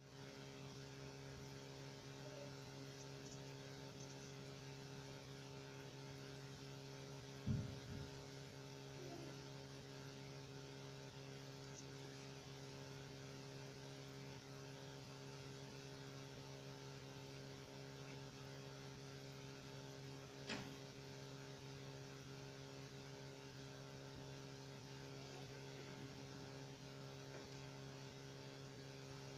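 A faint, steady low hum, with a low knock about seven seconds in and a short click about twenty seconds in.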